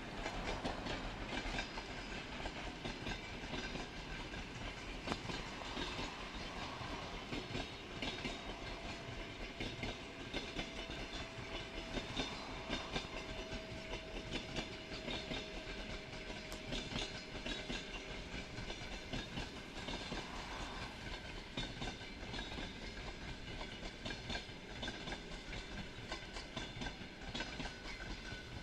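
Passenger train hauled by an EP2K electric locomotive rolling past, its wheels making a rapid, continuous clickety-clack over the rail joints. A faint steady whine runs alongside for about ten seconds in the middle.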